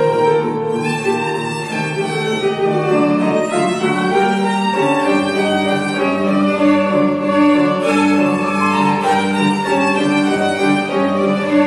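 Violin playing a classical melody with piano accompaniment, the violin leading over sustained piano notes.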